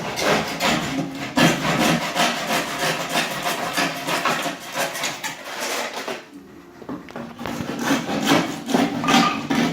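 Hand saw cutting through wood with quick back-and-forth strokes. The strokes stop for about a second around six seconds in, then start again.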